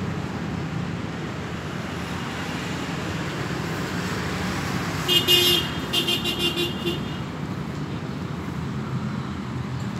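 Steady road traffic passing, with a vehicle horn sounding twice about five seconds in: a short toot, then a longer one.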